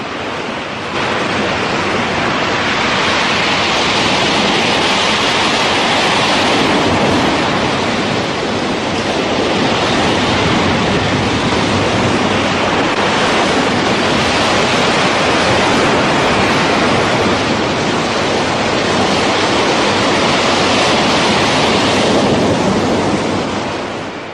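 Breaking ocean waves: a loud, steady rush of surf and churning water that tails off near the end.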